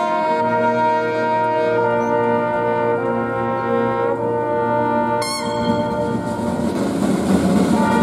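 Brass band playing slow, sustained chords, changing note every couple of seconds. A rushing noise swells under the music near the end.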